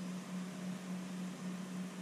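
Steady low hum with an even hiss underneath: room background noise from an electrical appliance or fan.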